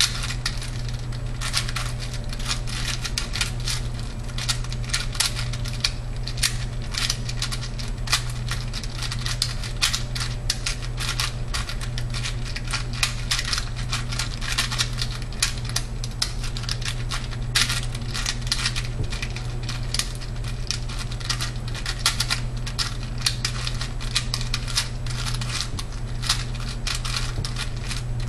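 Rapid plastic clicking and clacking of a Type C 46mm mini 4x4x4 cube as its layers are turned in a timed solve, with turns coming thick and fast throughout. A steady low hum runs underneath.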